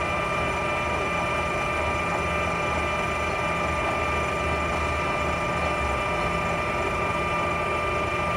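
Clausing Colchester 17" x 80" engine lathe running steadily with its spindle at 495 rpm: an even gear whine over the motor's hum.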